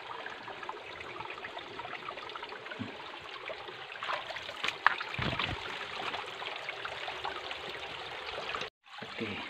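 Small shallow forest stream trickling and babbling over rocks, steady throughout. A brief low thump comes about five seconds in, and the sound cuts out for a moment near the end.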